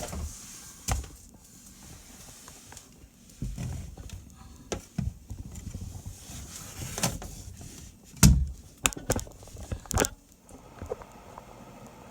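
Irregular knocks, taps and thumps, as of things being handled and set down, with the loudest thump about eight seconds in and a quick cluster of taps just after.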